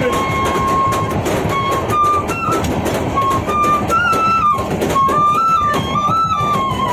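Bamboo flute (bansuri) playing a slow tune of long held notes that step up and down, over the running rumble and rattle of a train coach.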